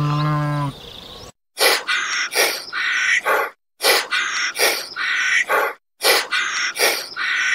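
A sheep bleating, ending under a second in. After a short break come quick groups of short bird calls, the same pattern repeating about every two seconds with brief silences between.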